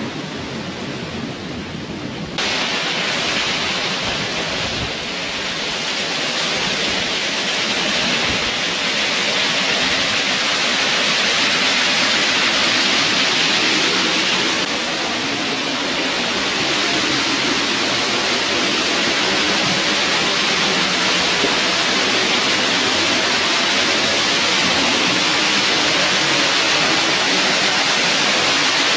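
Waterfall cascade from a lake: a steady rush of falling water that gets suddenly louder about two seconds in.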